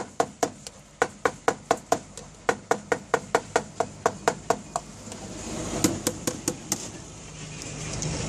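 Cleaver chopping pork head meat on a flat steel griddle: rapid, even knocks, about four to five a second, with a short metallic ring on each stroke. The chopping stops about five seconds in, a few more strokes follow, and then a rush of background noise swells near the end.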